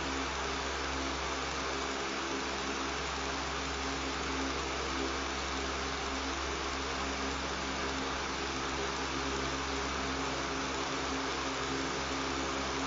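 Electric room fan running steadily: an even rush of air with a low, constant motor hum beneath it.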